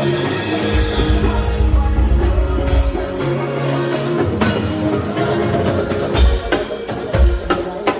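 Live band playing during a sound check: drum kit, bass and held chords, with sharp drum hits coming in more strongly in the second half.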